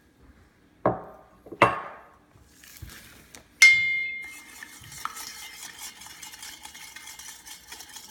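A couple of knocks and a loud ringing clink of a spoon against a mixing bowl, then from about halfway a spoon stirring borax into water in the bowl, a fast steady run of scraping and clinking.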